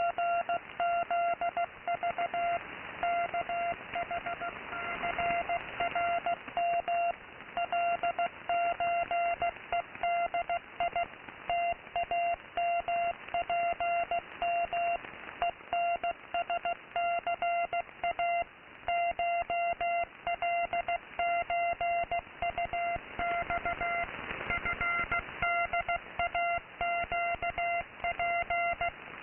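Morse code from an unidentified shortwave station on 15750 kHz, received in AM mode: a single-pitched beep keyed on and off in quick dots and dashes, over a steady band-noise hiss.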